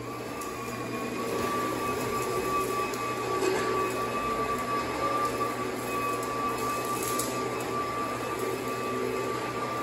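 A steady mechanical hum from a running motor, with a thin, slightly wavering whine held over it.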